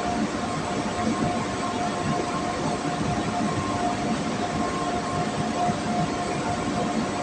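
Steady machine noise, an even rumble and hiss with a constant tone running through it.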